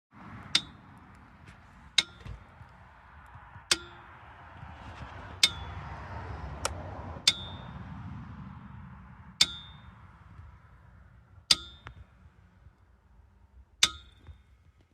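A jack giving a sharp metallic clang that rings on briefly, about nine times at roughly two-second intervals, over a faint low rumble. This is the unexplained noise the owner is asking about.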